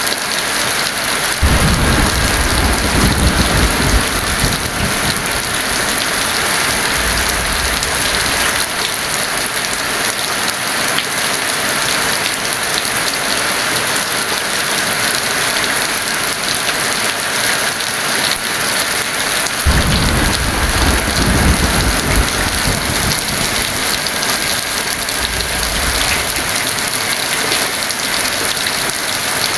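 Heavy rain falling steadily as a dense hiss, with thunder rolling twice in long low rumbles, each lasting several seconds.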